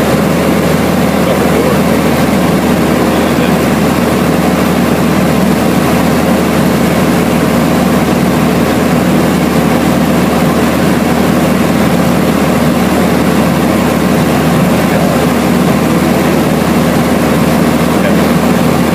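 Light aircraft's propeller engine running steadily, a constant drone with low humming tones heard from inside the cabin.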